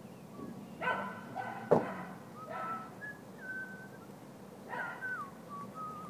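Short animal calls three or four times, with thin whistled notes between them and a sharp click about two seconds in, over a steady low hum.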